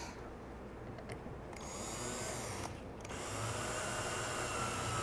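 Cordless drill driving a screw into wood. The motor starts about a second and a half in, stops briefly near three seconds, then runs steadily with a whine that slowly drops in pitch.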